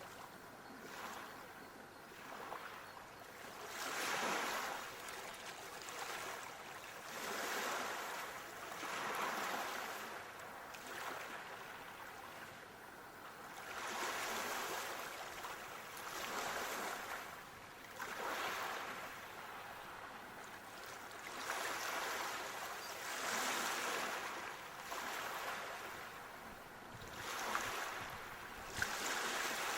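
Ocean waves washing onto a shore, the surf swelling and fading every few seconds, with a couple of faint sharp ticks near the end.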